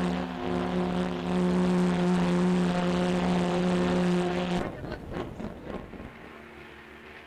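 SS Normandie's steam whistle sounding one long, deep, steady blast that cuts off about four and a half seconds in. A much fainter whistle tone follows near the end.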